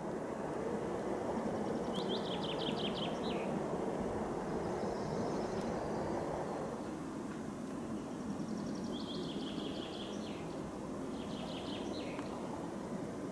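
A songbird singing three short trills of quick descending notes, over a steady low rumble of background noise.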